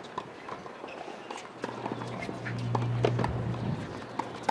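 Tennis practice rally on a hard court: sharp pops of racquets hitting the ball and ball bounces, mixed with shoe steps. A low steady hum comes in about one and a half seconds in and fades out near the end.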